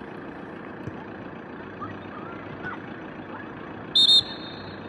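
Referee's pea whistle blown in two quick sharp blasts about four seconds in, the loudest sound here, over a steady background hiss of open air and faint shouts from players.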